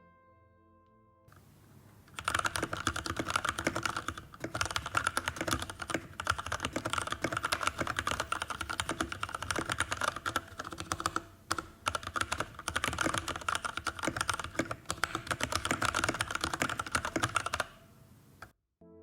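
Fast typing on a Varmilo Miya 68 mechanical keyboard with Cherry MX Red linear switches: a dense clatter of keystrokes that starts about two seconds in, with a few brief pauses, and stops about a second before the end.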